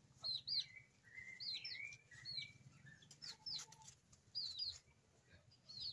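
Small birds chirping: short, high chirps that dip at the end, coming singly and in quick pairs throughout.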